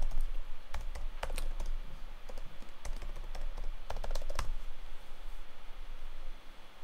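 Typing on a computer keyboard: a run of irregular key clicks that stops about four and a half seconds in.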